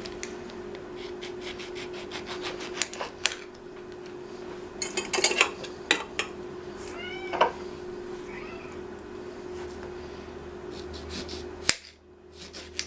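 Knife slicing grapefruit on a cutting board and slices being dropped into a pot: a run of clicks and knocks, with a short rising-and-falling squeal about seven seconds in. A steady hum underneath cuts off sharply near the end.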